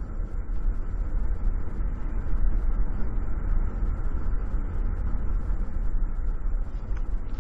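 Road and engine noise inside a moving car's cabin: a steady low rumble, recorded through a cheap camcorder's built-in microphone.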